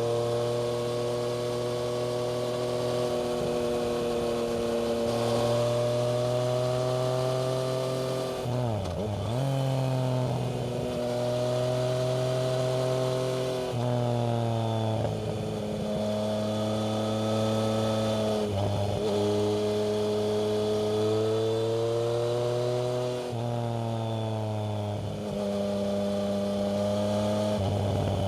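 Yamaha MT-09's inline-three engine running through a Black Widow aftermarket exhaust, ridden at a steady mid-range pace. The note climbs slowly, then dips and climbs back several times as the revs change.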